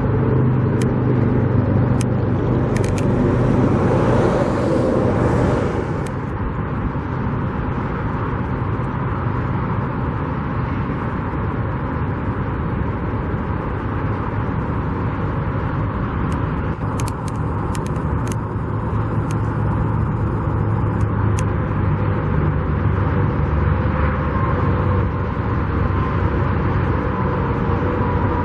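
Steady motor-vehicle traffic and engine rumble, with one vehicle passing more loudly about four seconds in.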